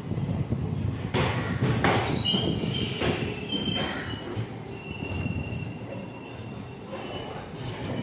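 Passenger train rolling slowly, heard from on board: a steady low rumble with a few sharp clanks. High, thin wheel squeal starts about two seconds in and fades out near the end.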